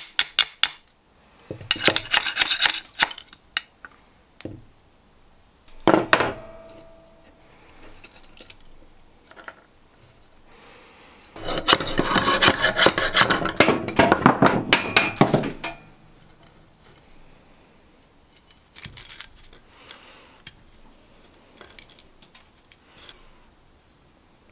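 A metal blade scraping and prying at the cardboard handle of an old rusty file where it grips the tang. There are quick taps in the first second, short scraping bursts, a long stretch of rough scraping about halfway through, and fainter scrapes and taps toward the end.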